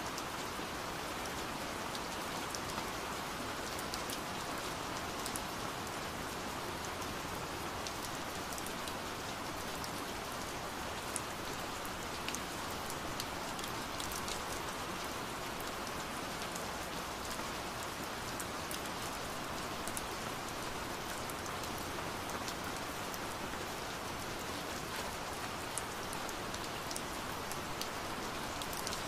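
Steady rain falling, an even patter with scattered sharper drop ticks, laid in as a calm rain-sound background track.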